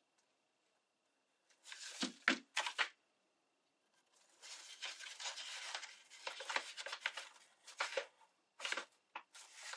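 Dry book-page paper rustling and crinkling as hands press glued paper cones together into a flower. It comes in short bursts with a longer stretch in the middle, and a few sharp clacks come about two seconds in.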